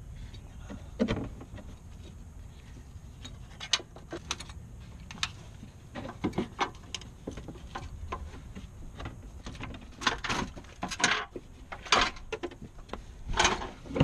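Scattered clicks, taps and knocks of hands working in a car's front wheel well, wiping with a rag and handling the plastic fender liner, over a low steady rumble. The knocks come more often in the last few seconds.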